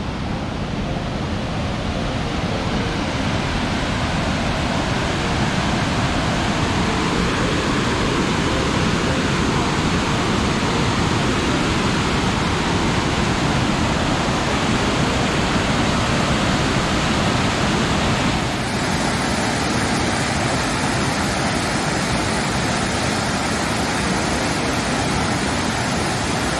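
Steady, loud rushing of falling or fast-running mountain water, an even noise with no breaks.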